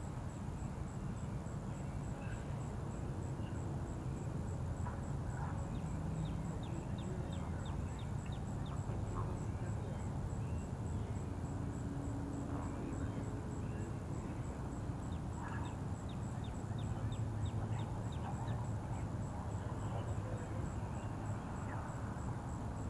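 Birds calling over a steady low rumble, with two quick trills of rapid high ticks, one about six seconds in and one about fifteen seconds in.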